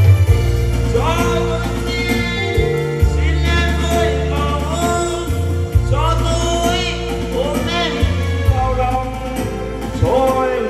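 A man singing into a microphone with live band backing from an electric guitar and a keyboard. He sings several phrases with vibrato on the held notes, over steady low chords.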